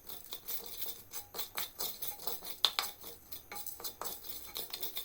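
A utensil stirring whole spices in a clay pot, with irregular clicks and scrapes against the pot, as cumin, black pepper and dried ginger are dry-roasted to make them easy to grind.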